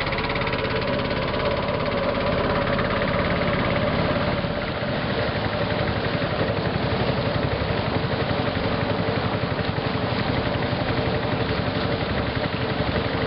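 Small engine of a river raft running steadily, with a fast, even pulse.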